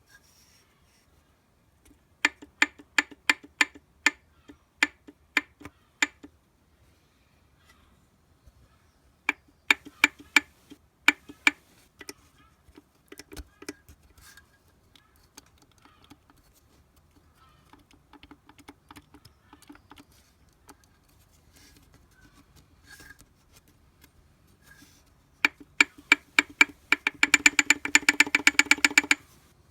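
Sharp metallic ticks in runs of about three a second, with a faster, dense run of clicking near the end.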